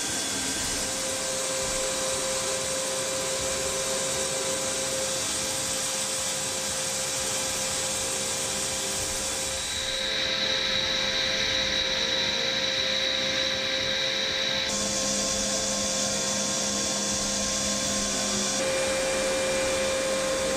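AH-64 Apache turbines running on the ground: a steady high whine over a loud rushing hiss. The tone shifts abruptly three times.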